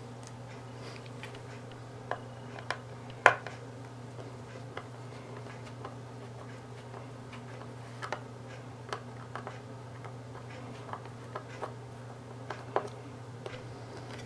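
Irregular light clicks and taps of a small screwdriver working the screws out of a plastic TV-box case, with the case being handled; one click about three seconds in is the loudest.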